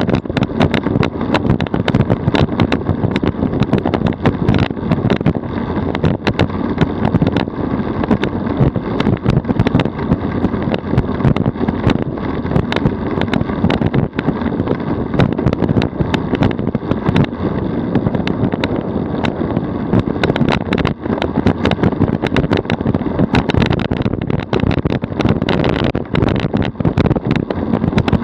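A DF velomobile rolling along an asphalt road at about 42 km/h: steady rumbling road noise from the tyres carried through the shell, with many small ticks and knocks and some wind noise on the microphone.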